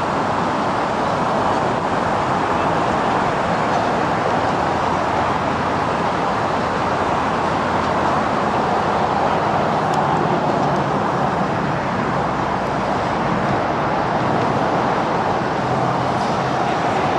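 Steady rushing vehicle noise, with a low hum joining in during the last few seconds.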